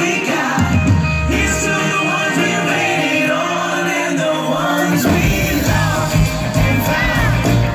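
Live pop-rock band with several singers on microphones over electric guitar and band, heard from the crowd. The low end drops away for a few seconds, then the full band comes back in about five seconds in.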